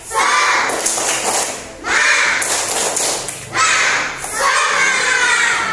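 A class of young schoolchildren shouting a chant together in four loud bursts, with sharp hand claps and thumps among them.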